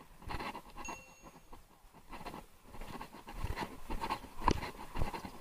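Irregular knocks and rustles of a handheld camera being moved about, with a brief high tone about a second in and a sharper knock near the end.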